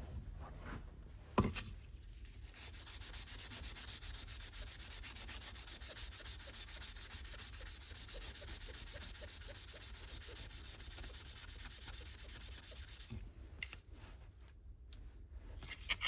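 Sandpaper rubbing back and forth on a metal part of an old Landis leather splitter in rapid, even strokes, taking off rust. It starts after a single knock and stops a few seconds before the end.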